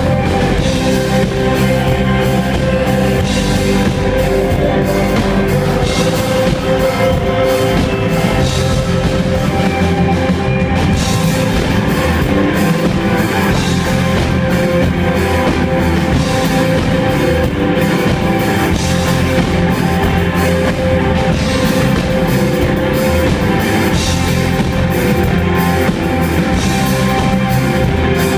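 Rock band playing an instrumental passage with drum kit and guitars, with a steady beat.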